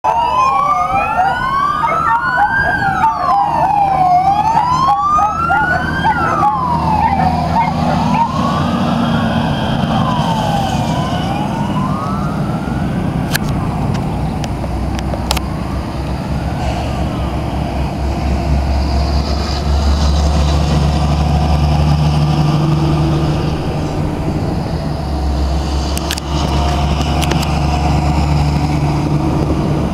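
An emergency-vehicle siren wailing, rising and falling about every three seconds, then fading out over the first ten or so seconds. After that come the low, steady engines of heavy military trucks passing, loudest in the second half.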